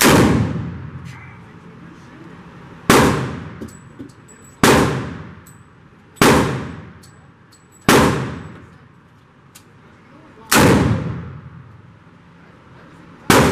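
Smith & Wesson Model 329PD .44 Magnum revolver fired at a slow pace: seven loud shots spaced about one and a half to three seconds apart. Each shot dies away in the echo of an indoor firing range.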